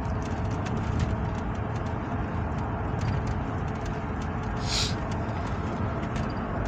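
Steady rumble of tyre and engine noise inside a moving car's cabin. A brief hiss about four and a half seconds in.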